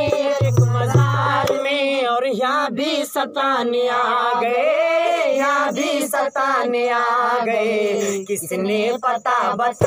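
A man singing a long, unaccompanied melismatic phrase with held, wavering notes. The dholak drumming under him stops about a second and a half in, and there are a few sharp clicks in the middle.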